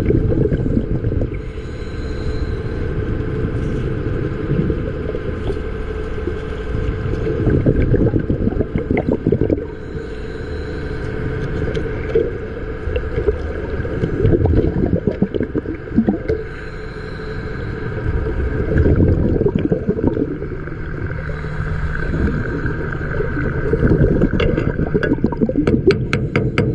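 Underwater sound from a diving and welding job: a steady hum and low rumble, with bursts of bubbling and gurgling every few seconds.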